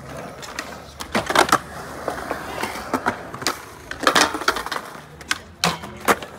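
Skateboards hitting and rolling on concrete ledges and ground: a run of sharp clacks and slaps from boards popping, landing and falling. The loudest clusters come about a second in and about four seconds in.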